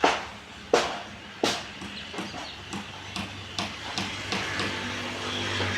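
Hammer blows on formwork during concrete centring work: three loud strikes in the first second and a half, then lighter, quicker strikes about twice a second.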